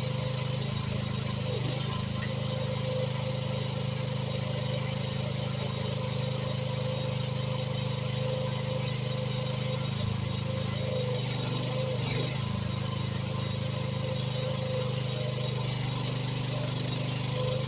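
AGT H13R mini excavator's engine running steadily under digging work, its note shifting briefly a little over halfway through.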